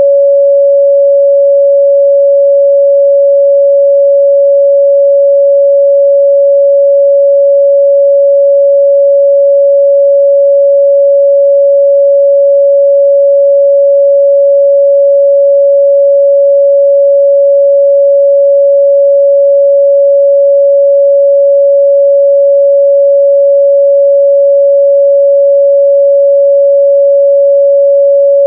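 Steady, loud 561 Hz pure sine-wave test tone, one unchanging pitch with no harmonics.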